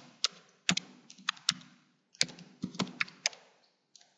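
Keystrokes on a computer keyboard: irregular typing, a few keys a second, with short pauses between runs.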